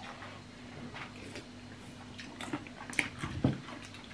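Noodle soup being eaten: chewing and sipping from a bowl, with a few sharp clicks of a spoon and a bowl in the second half.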